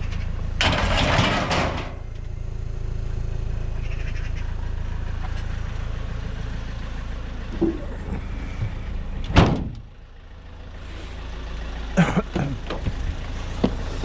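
Vehicle engine running steadily, with a loud hissing rush about a second in and several sharp knocks and bangs later; the loudest bang comes about nine seconds in, after which the sound drops briefly before building again.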